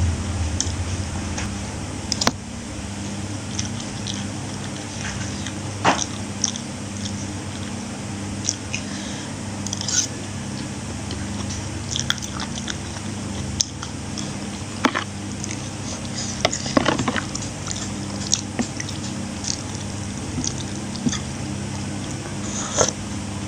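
A person chewing and biting food close to the microphone while eating rice, long beans and meatballs. Scattered sharp clicks run through it over a steady low hum.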